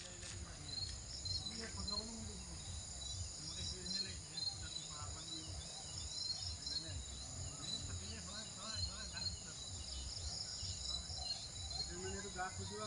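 Chorus of crickets and other insects, a steady high-pitched trilling with short chirps repeating over it, above a low rumble and faint distant voices.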